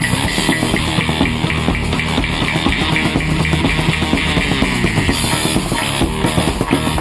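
A group playing music together, a bodhran frame drum beating a steady rhythm along with guitar.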